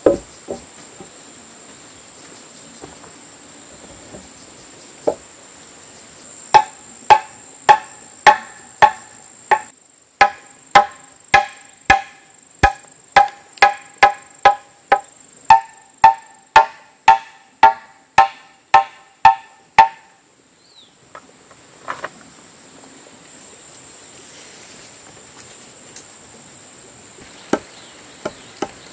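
Machete chopping into wooden planks: a steady run of sharp, ringing strikes, about two a second, for some thirteen seconds, then a few single knocks.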